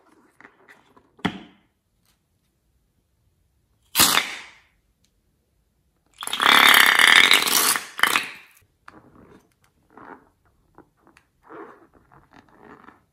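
A liquid-filled rubber balloon squeezed so that orange liquid and air squirt out of its neck in a wet, rough sputter lasting about two seconds; this is the loudest sound. A short sharp burst comes about four seconds in, and toward the end the rubber balloons crackle and rustle as they are handled.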